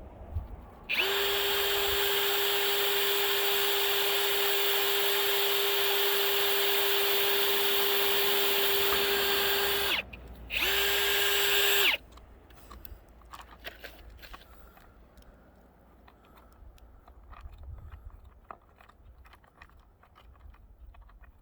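Small electric drill running at a steady high whine for about nine seconds, stopping briefly, then running again for a second or so while drilling a 1/16-inch pilot hole in a rail joint bar. After it stops there are only faint clicks of handling.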